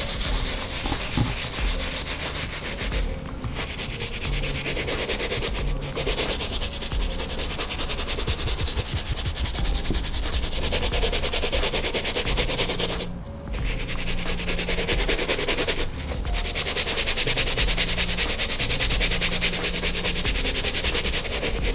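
A brush wet with sneaker cleaning liquid scrubs the white leather upper of a Nike Air Force 1 in quick back-and-forth strokes, working up a lather. The scrubbing stops briefly a few times, longest about 13 seconds in.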